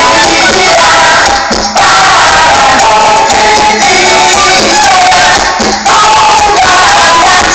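Loud music with singing played over a street sound system's speakers.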